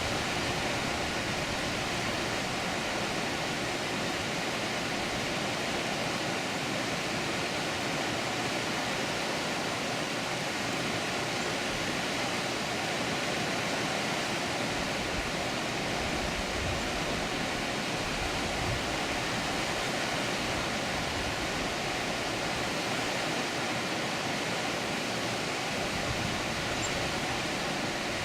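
Water pouring steadily over a dam spillway: an even, continuous rush without a break.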